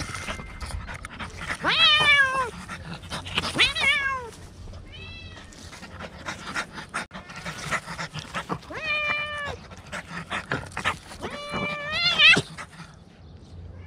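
A cat meowing about five times, each call rising and then falling in pitch, with the loudest call near the end.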